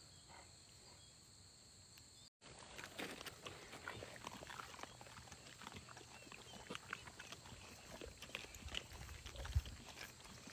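Several mastiffs eating raw meat off the grass: faint, irregular chewing, crunching and smacking, which starts about two seconds in. There is a dull thump near the end.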